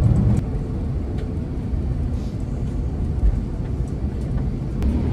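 Steady low rumble of a moving vehicle, with a few faint clicks and knocks.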